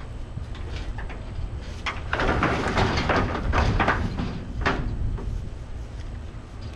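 Wooden deck section scraping and knocking against the metal deck of a flatbed trailer as it is slid into place, loudest for about three seconds in the middle.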